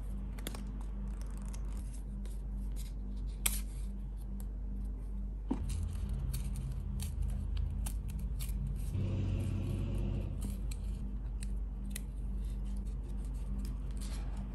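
Paper sticker being handled and peeled off its backing sheet: scattered crisp paper crackles and clicks, with a longer rustle about nine seconds in, over a low steady hum.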